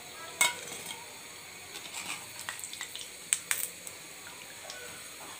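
A perforated metal skimmer clinking against an iron karahi as fried cauliflower pakoras are lifted out of the hot oil, with oil dripping back through its holes. One sharp clink about half a second in, a run of lighter taps, two more sharp clinks a little past three seconds, all over a steady faint hiss of frying oil.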